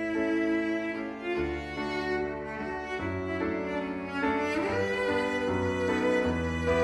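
Background music of slow bowed strings, violin and cello, over a low bass line, the held notes changing every second or two.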